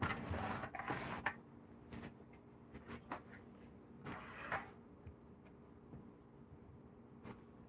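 A whole rotisserie chicken being moved from its plastic tray onto a wooden cutting board, with a rustling scrape in the first second and a bit and a shorter one about four seconds in. Scattered light knocks of handling come over a faint steady hum.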